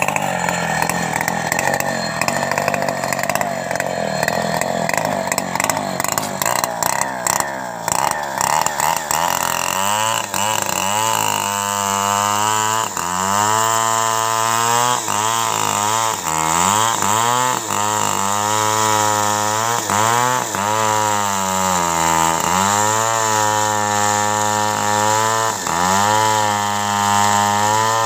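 Stihl two-stroke chainsaw running at high revs while cutting teak logs. From about ten seconds in, its pitch repeatedly dips and recovers as the chain loads in the wood.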